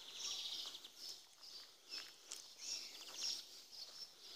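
Faint birdsong: small birds repeating short chirps and trills, with a few soft ticks among them.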